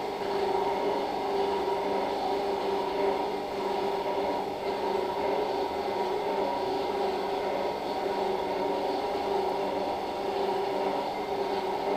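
Steady drone of operating-room equipment, with several level hum tones and no change in pitch or loudness.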